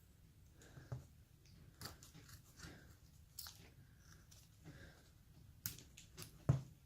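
Carving blade slicing and paring basswood by hand: short crisp scratchy cuts, about one a second at an uneven pace, with a louder knock near the end.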